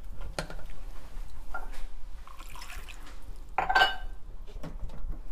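Spatula stirring thick, wet gravy in an aluminium pressure cooker: squelching liquid sounds and soft scrapes, with a louder knock against the pot that rings briefly about three and a half seconds in.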